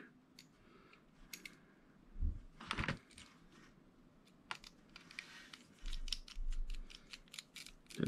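Small screwdriver driving tiny screws into a die-cast Hot Wheels van's chassis, with small metal parts handled: faint scattered clicks and light scraping, a louder cluster of clicks near the third second and quick rapid clicking in the second half.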